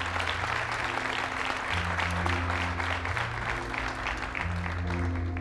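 Audience applauding steadily, a dense patter of many hands clapping. Under it runs background music with slow, held low notes.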